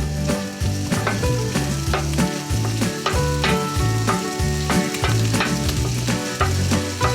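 Oil sizzling and crackling in a frying pan, over background music with held notes and a stepping bass line.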